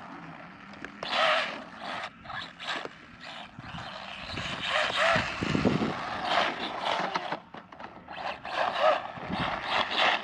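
Arrma Mojave Grom BLX mini RC truck driving over dirt and grass, its brushless motor giving short whines that rise and fall in irregular bursts as the tyres scrabble over the ground.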